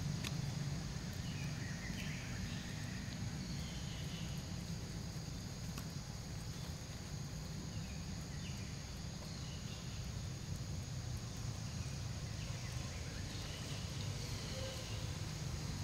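Outdoor ambience: a steady low rumble with faint, short high chirps a handful of times.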